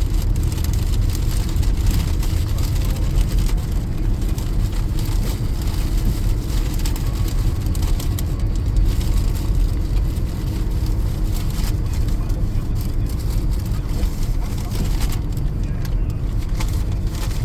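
Car driving on a wet road: steady tyre and engine rumble from inside the car, with scattered light ticks.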